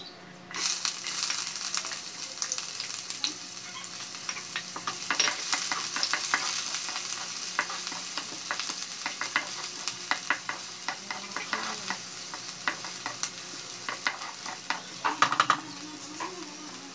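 Chopped onions and green chillies dropped into hot oil in a black kadai: the sizzle starts suddenly about half a second in. It keeps sizzling while a spatula stirs and scrapes the pan in quick clicks, with a louder flurry of scraping near the end.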